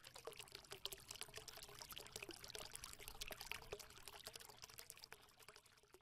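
Faint, dense crackling and trickling like water pouring, swelling in the middle and fading near the end.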